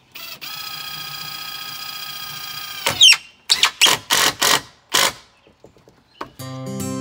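Cordless driver running a screw into a cedar board: a steady motor whine for nearly three seconds, then a loud burst and several short, louder bursts as the screw is driven home. Music comes in near the end.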